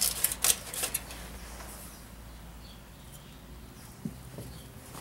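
Aluminium foil crinkling as it is pressed into place by hand, a burst of quick crackles in the first second, then quieter handling with a soft knock about four seconds in.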